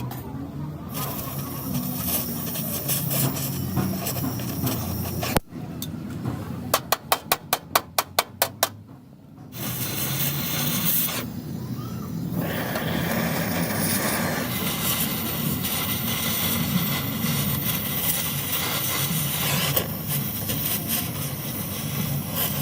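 Car bodywork hand-tool noise in several short cuts: steady rubbing and scraping on the body, and about a quarter of the way in a quick run of about nine sharp knocks, roughly four a second.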